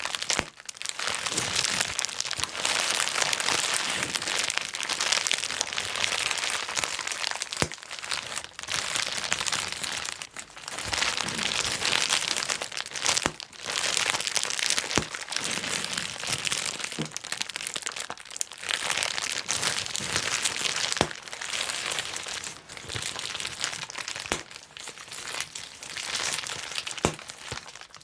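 Plastic bubble wrap being crumpled and popped by hand: continuous crinkling of the plastic sheet with many sharp pops, broken by a few short pauses.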